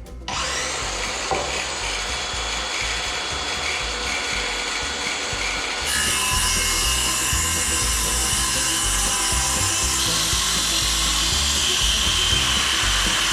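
A power tool working through wood, running steadily, getting louder and harsher about six seconds in and stopping near the end.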